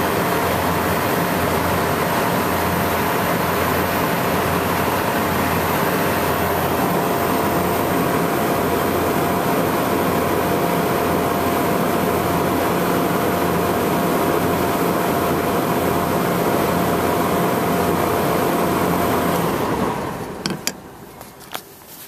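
Refrigeration condensing unit with a Tecumseh hermetic compressor, running R22, runs with a steady hum while pumping the system down. It cuts out suddenly near the end, and a few sharp clicks follow.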